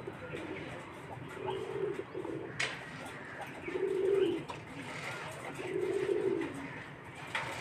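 Pigeon cooing: several low coos a couple of seconds apart. There is also one sharp click about a third of the way in.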